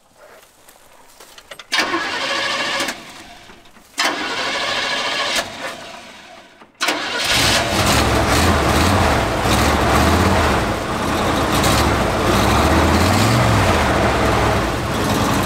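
1972 Chevrolet C10 pickup's engine cranked on the starter in two bursts, catching about seven seconds in and then running with the revs rising and falling. The exhaust manifolds are freshly fitted with new gaskets, sealing a former exhaust leak.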